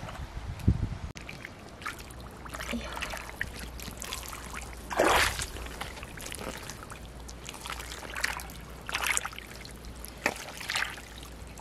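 Hands digging through mud and shallow water, feeling for pearl clams: a string of short wet splashes and sloshes, the loudest about five seconds in, over a low steady rumble.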